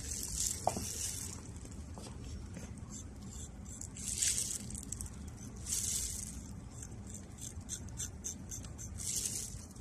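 Pedicure blade scraping hardened dead skin off a cracked heel: dry scratchy strokes, a longer one at the start and others about four, six and nine seconds in, with quick light scratches between the last two, over a faint low hum.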